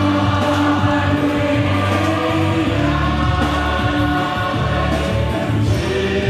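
Music: a choir of many voices singing a slow song with long held notes over a steady instrumental accompaniment.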